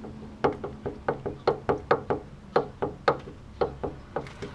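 Front sway-bar (stabilizer) end link on a Mercedes-Benz knocking repeatedly, about four or five sharp knocks a second at an uneven pace. The knocking is play in the link's worn lower ball joint, the cause of a clunk from the front suspension over bumps.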